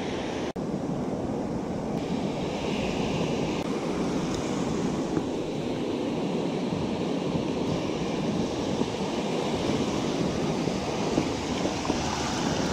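Ocean surf washing through the shallows, a steady rush of breaking waves and foaming water. The sound cuts out for an instant about half a second in.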